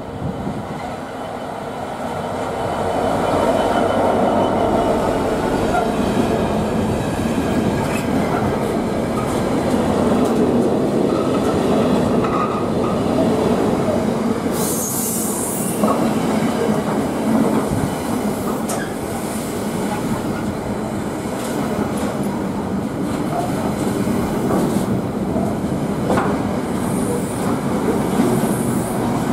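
A GB Railfreight Class 66 diesel locomotive, with its two-stroke V12 engine working, passes close by a few seconds in. A long train of container wagons follows, rumbling steadily with wheel clicks on the rails. There is a brief high screech from the wheels about halfway through.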